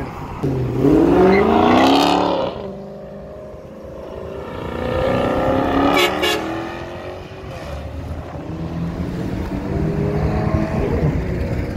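Dodge Charger 392's 6.4-litre HEMI V8 accelerating hard from a stop. It revs up in a loud rising pull about a second in, then pulls up again through the next gear, and settles to a steadier, quieter run as it drives away.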